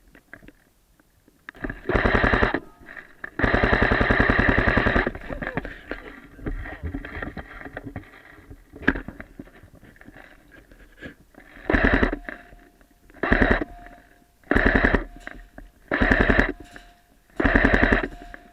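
Airsoft gun firing on full auto in rattling bursts: a short burst, then a longer one of about two seconds, a single shot, and then five short bursts at an even pace of about one every second and a half.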